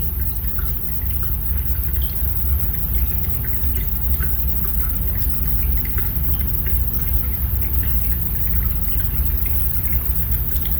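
Small battery-driven DC gear motor of a toy car running on a 1.5 V battery, turning its wheel: a steady low hum with many small, irregular ticks.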